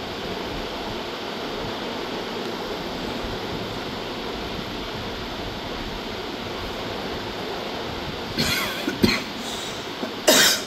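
Steady rushing background noise, broken near the end by two loud, sudden noises a little over a second apart.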